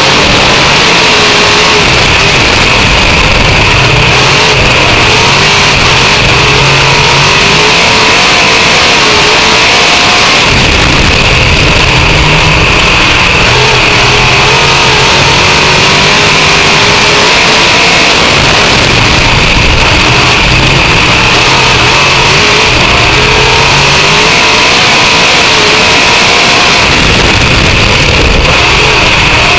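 Dirt-track race car's V8 engine at racing speed, heard from inside the cockpit, loud throughout; its pitch rises and falls as the throttle opens down the straights and eases through the turns, swelling about every eight seconds. A steady high whine runs underneath.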